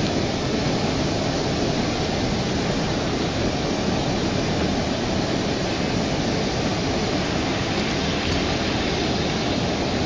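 Flooded river rushing past in a loud, steady torrent, muddy water churning over standing waves.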